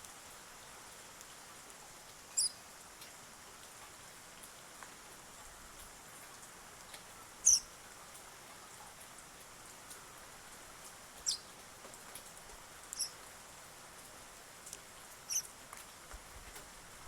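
Eurasian tree sparrow giving five short, high chirps, spaced irregularly a few seconds apart, over a faint steady hiss.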